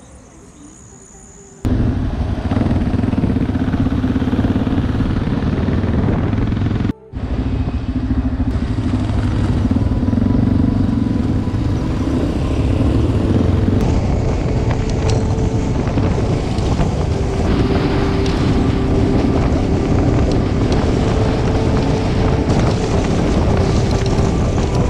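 Motorcycle riding along the road, its engine and road and wind noise running steadily. The sound starts abruptly about two seconds in and breaks off for a moment near seven seconds.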